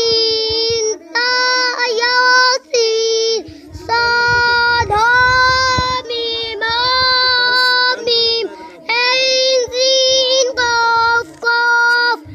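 A young boy chanting aloud from an Arabic alphabet primer in a high, sing-song voice: short phrases of long held, steady notes, each about a second, separated by brief breaths.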